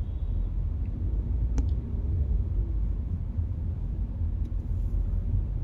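Low, steady rumble of a car driving on the road, with a couple of faint clicks.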